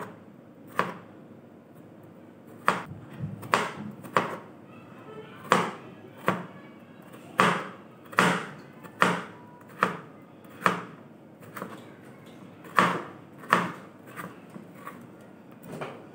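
Kitchen knife slicing a bitter gourd into thin rounds on a plastic cutting board: sharp knocks of the blade meeting the board, about one a second at an uneven pace with short pauses.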